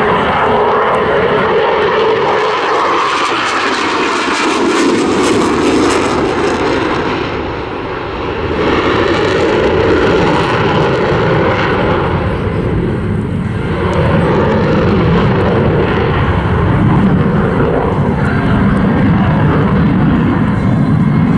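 Loud jet noise from a Eurofighter Typhoon FGR4's twin EJ200 turbofan engines during a display pass. It dips briefly about eight seconds in, then builds again.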